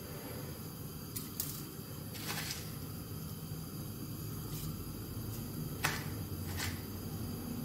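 A metal spoon giving a few light clicks and taps against a steel pot of milk on a lit gas burner, over a low steady burner noise. The sharpest click comes about six seconds in.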